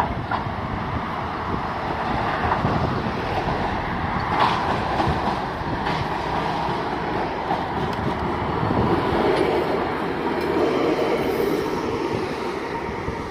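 A vintage W-class tram running on its rails as it approaches and draws up close, with a rumbling wheel-on-rail noise and a few knocks. It grows louder towards the end as the tram nears.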